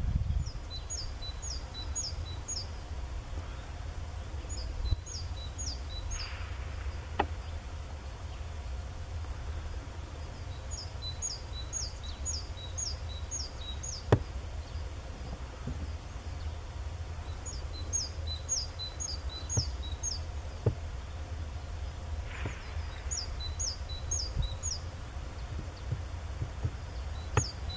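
A small songbird singing the same short phrase of five or six quick, high, falling notes, repeated about every five to six seconds, over a steady low rumble.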